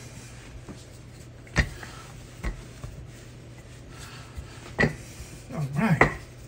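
Wooden rolling pin being handled on a sheet of puff pastry over a floured silicone mat: a few sharp knocks, about a second apart, over a steady low hum. Near the end comes a short, low vocal murmur, the loudest sound.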